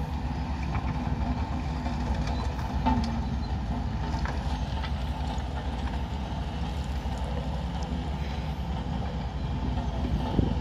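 Diesel engines of earthmoving machines, excavators digging a trench with tractors working around them, running in a steady low drone, with a few faint knocks.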